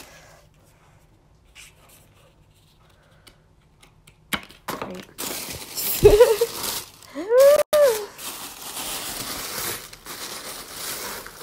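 Tissue paper crinkling and rustling as it is pulled back in a shoebox, starting about four seconds in after a near-quiet stretch. Two short pitched sounds, rising then falling, stand out over the rustling near the middle.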